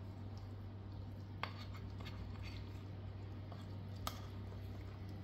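Metal spoon stirring thick flour-and-yogurt batter in a glass dish: soft scraping with a few sharp clinks of the spoon against the glass, the clearest about a second and a half in and again about four seconds in, over a steady low hum.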